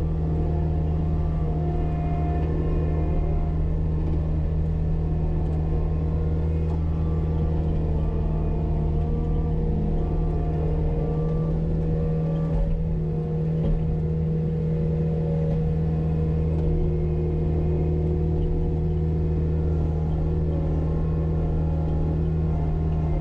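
Cat 279D compact track loader's diesel engine running steadily under load, heard from inside the cab. Fainter, shifting tones sit above the engine's drone as the machine pushes dirt.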